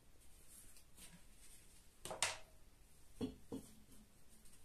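A glass jar's plastic screw lid being taken off and the jar handled: a couple of sharp clicks about two seconds in, then two duller knocks about a second later.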